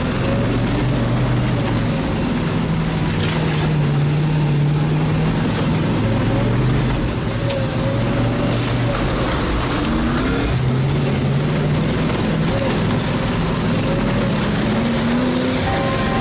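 A vehicle engine running steadily, its pitch shifting a little now and then, with a few clicks and knocks over it.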